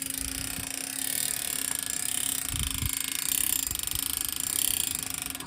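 Mountain bike rear freehub buzzing as the wheel freewheels: a dense, rapid ticking of the ratchet pawls, steady throughout.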